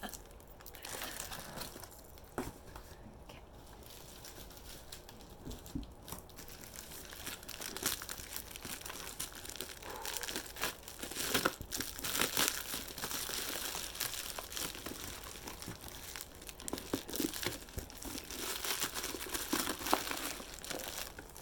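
Packing material crinkling and crumpling in irregular handfuls as a wrapped item is unwrapped by hand, busier in the second half.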